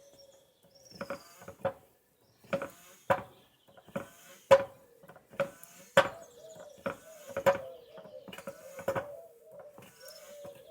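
Old Dunlop trolley foot pump being worked stroke after stroke to inflate a car tyre: a pair of knocks with a short hiss on each stroke, about one stroke every second and a half.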